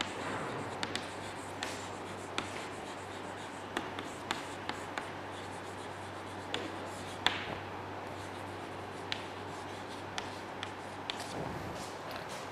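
Chalk writing on a blackboard: faint scratching of the chalk stick with scattered sharp taps as it strikes the board.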